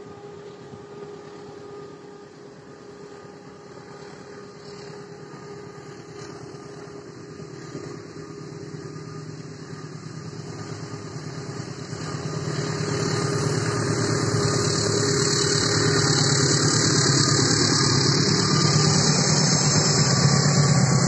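Diesel-electric locomotive hauling a passenger train approaching: a steady engine drone, quiet at first, that grows much louder about halfway through and keeps building as the locomotive comes close.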